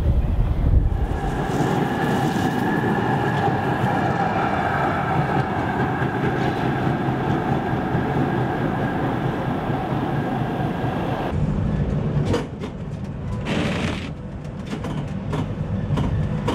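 Düwag tram running along street tracks: a steady rolling rumble with a constant whine. About eleven seconds in, the sound cuts abruptly to a quieter, uneven noise with a few short knocks.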